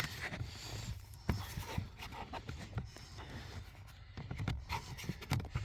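Hands fumbling under the dashboard: scattered light clicks and taps with faint scraping, as of plastic trim being handled.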